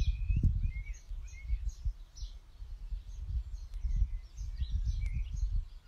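Garden birds calling in many short chirps and brief whistles, over an uneven, gusting low rumble of wind on the microphone.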